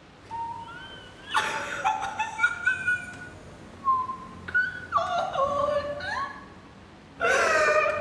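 A woman crying: high-pitched, broken sobbing cries in several runs, growing loud near the end.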